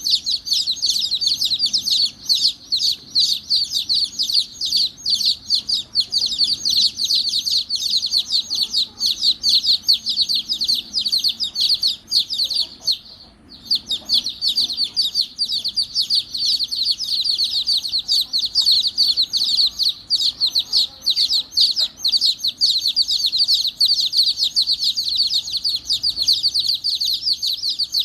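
Baby chicks peeping rapidly and continuously, many high chirps overlapping, with a short break a little past halfway through.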